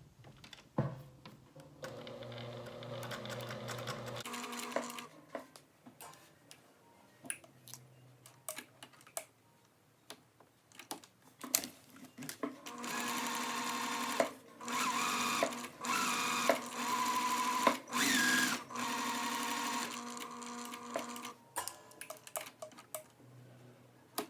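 Sewing machine edge-stitching a shirt cuff. A short run of stitching about two seconds in, then a longer run from about thirteen to twenty-one seconds that speeds up and slows again partway through, with small clicks from handling the fabric and machine in between.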